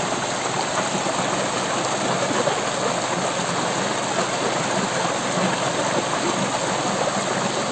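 Steady rushing of a flowing river.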